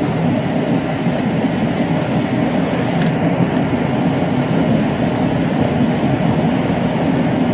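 Steady low rumble of a running vehicle, even in level throughout.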